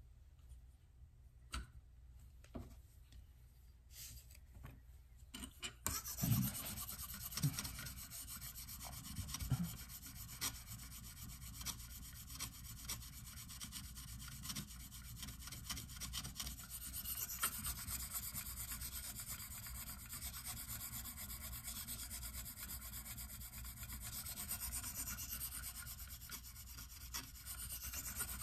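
A few small clicks, then from about six seconds in a KME guided sharpening hone is stroked back and forth along the edge of a folding knife's steel blade in a steady run of scraping strokes, an abrasive sharpening of the knife edge.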